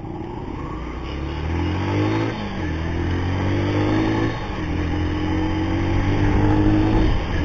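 Motorcycle engine accelerating through the gears, its pitch climbing in each gear and dropping at three upshifts, about two and a half, four and a half and seven seconds in.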